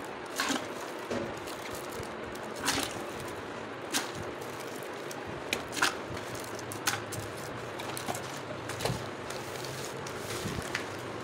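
Small cardboard juice boxes being handled and dropped one by one into a bucket of water, with crinkling from a plastic bag: irregular light knocks and crinkles, about eight of them, over a steady background hiss.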